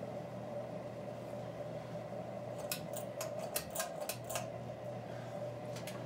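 Antique GE T-78218 ceiling fan's shaded-pole motor humming steadily at medium speed. About halfway through comes a quick run of sharp clicks and rattles as its speed switch is worked over toward high, and the low hum dips briefly.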